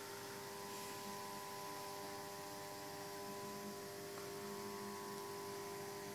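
Steady electrical hum made of several held tones over a faint hiss, unchanging throughout.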